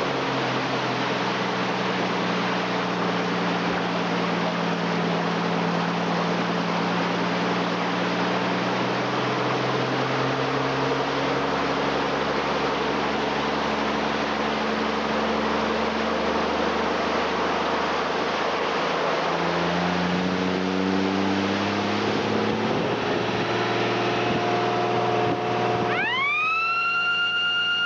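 Nissan Patrol's engine pulling under load as the vehicle wades through deep floodwater, with water spray rushing against the body and the engine note shifting and rising as it drives on. Near the end a loud siren-like wail rises quickly and holds steady.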